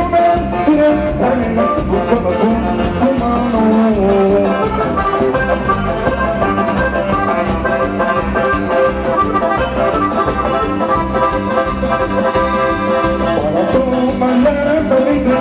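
Live Latin band music with a steady beat and sustained melody lines.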